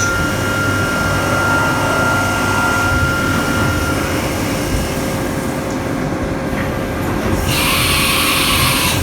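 CNC milling machine drilling a clearance hole about 3/8 inch deep into thick stock, the spindle and cut making a steady whine that stops about four seconds in. A loud hiss comes in over the last second and a half.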